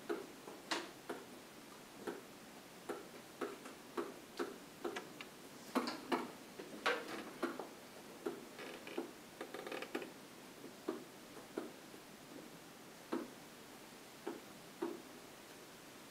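A pen tapping and scraping on a whiteboard surface during handwriting: irregular sharp taps, a few a second, with a few longer scratchy strokes in the middle.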